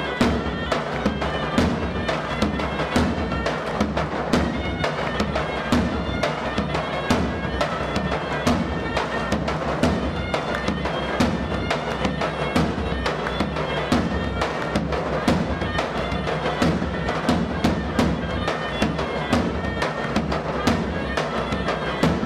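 Live Albanian folk dance music: a shrill reed wind instrument plays the melody over a steady beat from a large double-headed drum (lodra).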